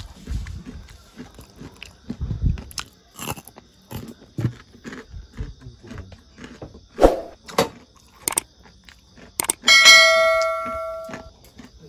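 Crunching and chewing of crispy breadcrumb-coated fried noodle nuggets, irregular crackles and soft thuds. Near the end a bright bell-like ding rings and fades over about a second and a half: a subscribe-button chime.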